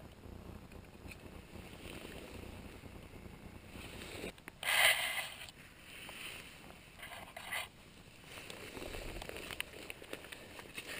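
Low rumbling microphone noise from wind and handling, with rustling of ferns and jacket fabric. A loud rustle comes about five seconds in and a shorter one a little before eight seconds.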